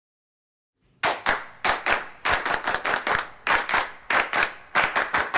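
Two people clapping their hands in a rhythmic pattern, starting about a second in.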